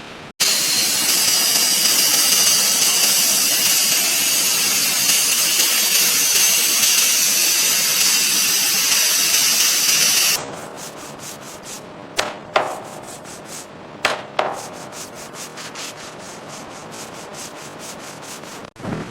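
Power sander running steadily against a surface for about ten seconds. Then a quieter stretch of rapid, even rubbing strokes, with a few knocks.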